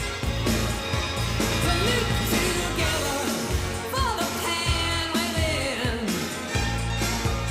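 1980s new wave dance-pop song with a sung vocal over a steady bass and drum beat.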